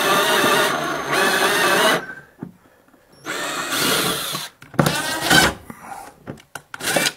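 Power drill driving screws through a pocket-hole jig's securing holes into a stair tread. There is a long run of the motor, a pause, a second shorter run past the middle, then short bursts near the end.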